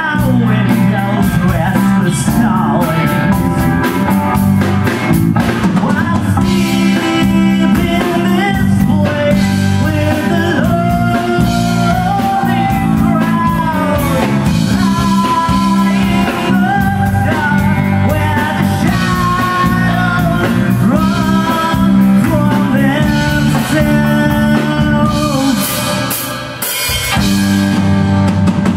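Live rock band playing: a man sings lead over electric guitars, drum kit and keyboard, with a brief drop in loudness near the end.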